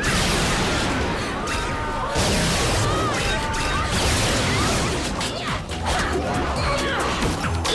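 Background action music with fight sound effects: repeated hits, crashes and whooshes, which come thicker in the second half.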